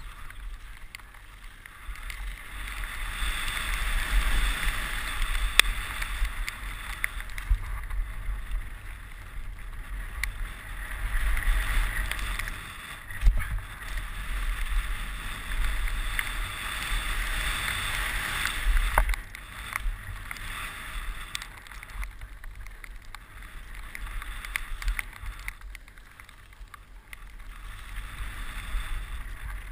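Wind buffeting the microphone and mountain-bike tyres rushing over loose dirt on a fast descent, swelling and easing in waves, with a few sharp knocks from the bike hitting bumps.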